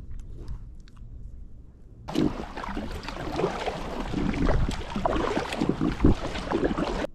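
Faint clicks of hands fitting a soft lure, then, starting suddenly about two seconds in, a sit-on-top fishing kayak being paddled: uneven paddle splashes and water rushing along the hull, with wind buffeting the microphone in low thumps.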